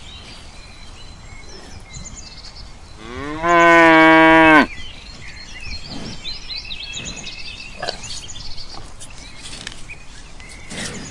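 A cow mooing once, a long call that rises at the start and then holds steady for about a second and a half, with faint high chirps afterwards.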